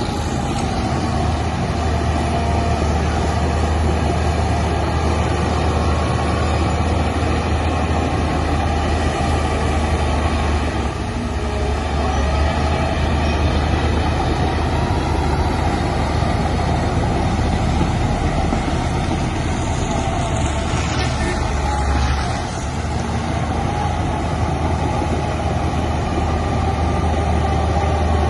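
Heavy diesel engine of earthmoving machinery running steadily, a deep continuous drone that drops briefly in level about three-quarters of the way through.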